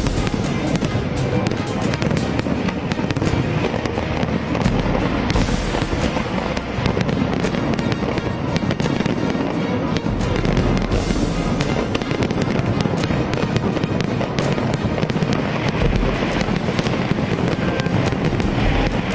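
Fireworks display: a dense, continuous crackling of many small bursts and pops, with music playing underneath.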